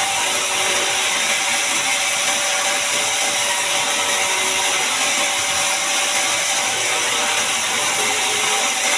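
Band sawmill running steadily through a large mahogany log: a steady high hiss of the blade in the wood with a constant whine underneath.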